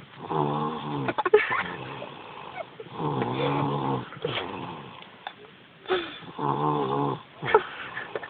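Young child snoring: three long, buzzing snores about three seconds apart, with a few short sharp clicks between them.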